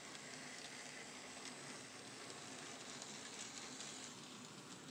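Faint steady hiss with light crackling ticks from an N scale model train running past on its track.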